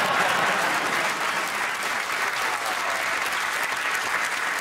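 Studio audience applauding, a steady dense clapping that keeps going.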